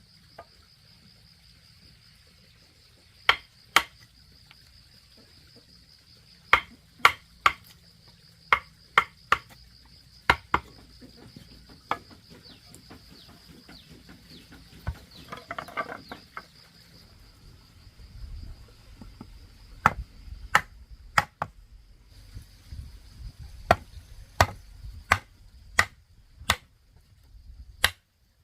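Irregular sharp knocks, single and in pairs, typical of hammer blows on wood, over a steady high-pitched insect trill.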